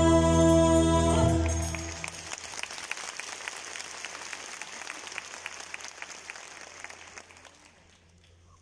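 The last held chord of a piece of music breaks off about a second and a half in. Audience applause follows and dies away over the next several seconds.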